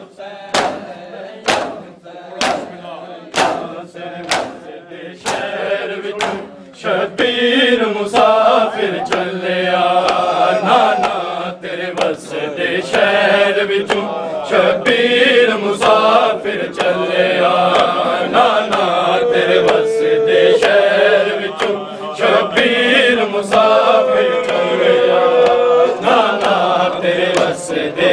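Mourners beating their chests (matam) in a steady rhythm, about three slaps every two seconds. About seven seconds in, a chanted noha recitation comes in over the continuing chest-beats.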